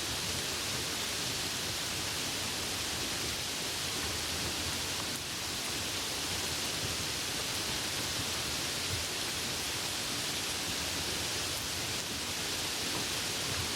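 Steady rain falling in the countryside: an even, unbroken hiss.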